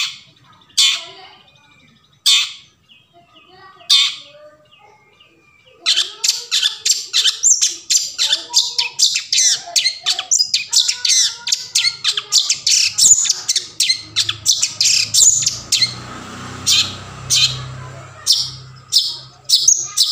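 Long-tailed shrike giving harsh, scratchy calls: four single calls spaced well apart, then about six seconds in a fast chattering run of rasping notes that slows to separate calls near the end.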